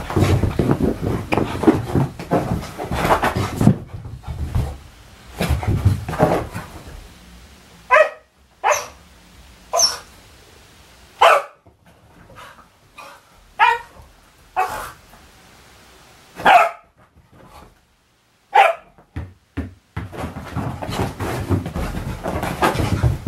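Working cocker spaniel giving about eight short single barks, spaced out through the middle of the stretch. At the start and again near the end, a busy run of thuds and scrabbling as the dog races and leaps on the sofa and wooden floor.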